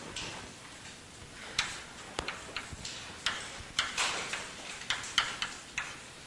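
Chalk writing on a blackboard: an irregular string of sharp taps and short scratchy strokes as the chalk meets the board, starting about a second and a half in.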